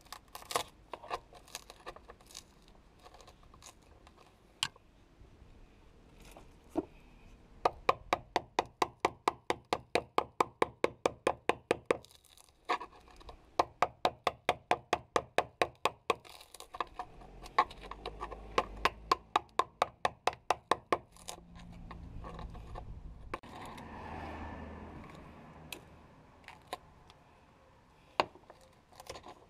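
A hand chisel chipping and scraping at old polyester fibreglass patching on a boat hull. There are two long runs of quick, evenly spaced sharp taps, several a second, and a rougher scraping rasp near the end.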